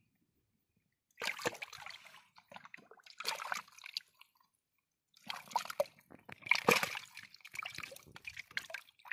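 Wet squishing and sloshing in three bouts, starting about a second in, the last and longest the loudest.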